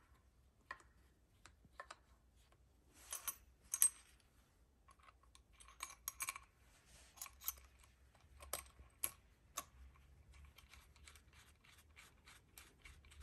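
Light clicks and scrapes of metal parts being handled on an aluminium automatic-transmission valve body as a shift lockout solenoid is fitted into it, with a few sharper ticks and a quick run of light ticks near the end.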